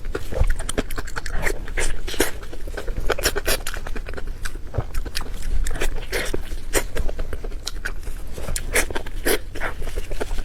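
Close-miked wet chewing and lip-smacking of a person eating with the mouth open, a quick irregular run of smacks and clicks.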